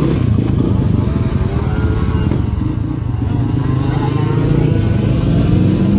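Motorcycle engines running loud and close, a steady low rumble with an engine note that rises and falls as the bikes rev.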